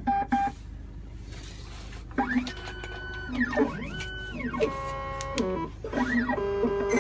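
Futura NA computerized key machine beginning a copy cycle: a couple of short beeps, then its motors whining in pitch that rises, holds and falls again several times as the key carriage and cutter move into position.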